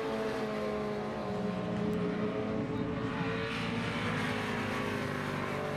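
Superbike racing motorcycle engines running, several engine notes overlapping and slowly rising and falling in pitch.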